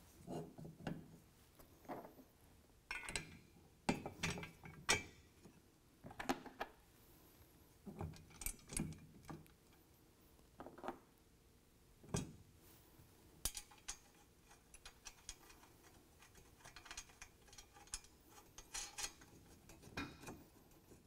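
Irregular light metallic clicks and knocks of steel rack hardware being handled: a carriage bolt, washer and lock nut fitted by hand as a tubular steel rail tube is seated in its bed-rail bracket.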